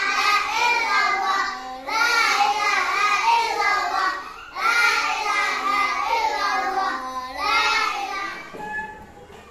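A class of young children singing together, in phrases of about two to three seconds with brief breaks between them, trailing off near the end.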